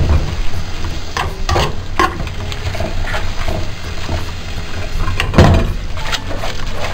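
Rice noodles and julienned vegetables sizzling in a nonstick frying pan while being stirred and tossed with long chopsticks, with irregular knocks and scrapes of the chopsticks against the pan; the loudest knock comes near the end.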